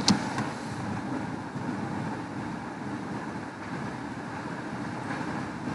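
Metal spatula stirring and scraping thick masala cooking in ghee in a stainless steel kadai, over a steady low hiss, with one sharp clink right at the start.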